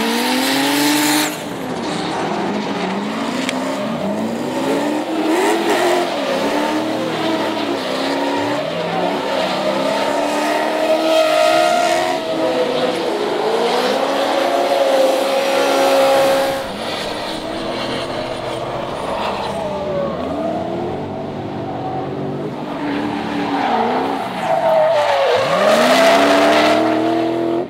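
Drift cars at full throttle, their engines revving up and falling back every couple of seconds, with tyres squealing; among them a BMW E30 fitted with an E39 M5 V8.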